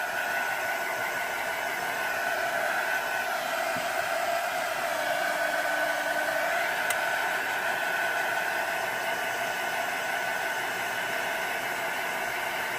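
A handheld electric dryer blowing: a steady rush of air with a high, steady whine, used to dry freshly stamped ink on a page.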